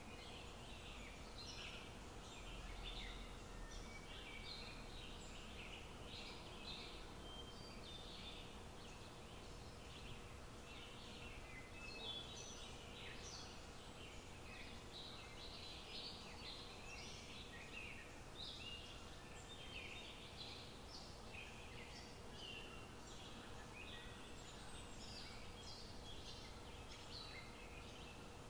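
Faint bird chirping: many short, irregular high chirps throughout, over a steady faint hum.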